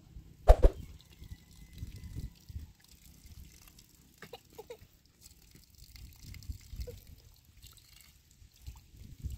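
Water trickling faintly from the tap of a metal water tank, with a sharp knock about half a second in and low rumbling handling noise throughout.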